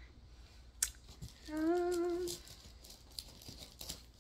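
A woman humming one held note for about a second, with a slight waver in pitch. A sharp click comes just before it, and faint clicks and rustles follow.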